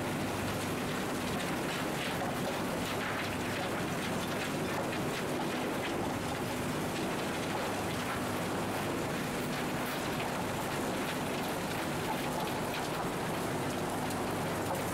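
Shredded scrap metal fragments rattling along a vibrating feeder and belt conveyor: a steady, dense clatter of small metal pieces over a low, even machine hum from the running shredding line.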